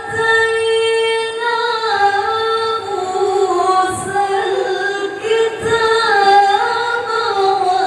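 A single high voice chanting Quran recitation in the melodic mujawwad style, drawing out long held, ornamented notes unaccompanied.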